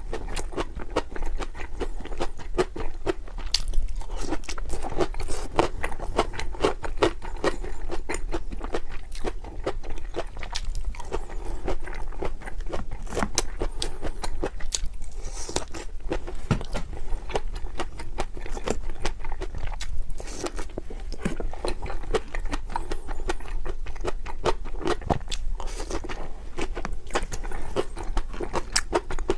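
A person chewing and biting crunchy food, a steady dense run of small crunches and crackles.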